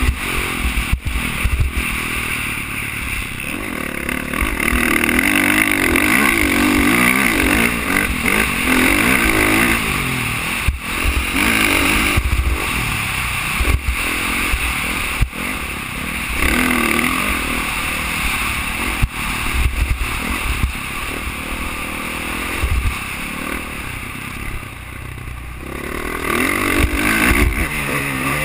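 Dirt bike engine revving up and down as the rider accelerates, shifts and brakes along the track, heard through a helmet-mounted camera, with low rumble and occasional sharp knocks.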